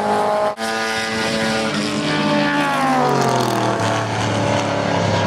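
Historic racing saloon cars passing at speed, led by a Ford Galaxie. Several engines are heard together, and the leading car's engine note drops in pitch between about two and three and a half seconds in as it goes by.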